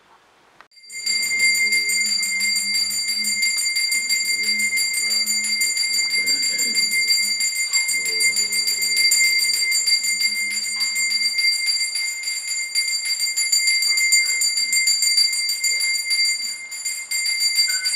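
A Hindu puja handbell (ghanta) rung rapidly and continuously, starting about a second in, as worship follows the end of a chanted name-litany. Faint voices sound underneath for roughly the first ten seconds.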